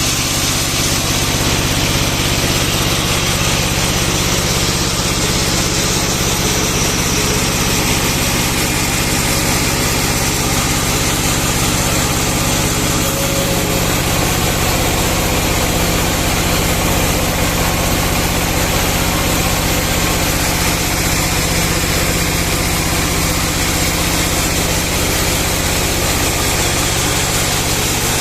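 Band sawmill running steadily: an even machine hum with a continuous hiss over it, unchanging throughout.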